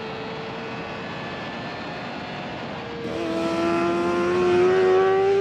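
Sport motorcycle engine running at high revs on a race track, steady at first. About three seconds in it gets louder, its pitch rising as the bike accelerates.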